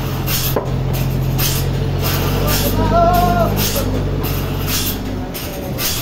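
Forklift engine running steadily while it holds a large log on its forks, with a brief whine that rises and falls about halfway through.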